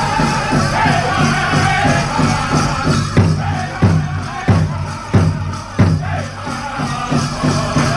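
Powwow drum group playing a chicken dance song: a big drum struck in a steady beat under the singers' voices. About three seconds in, five harder strokes stand out, roughly one and a half a second.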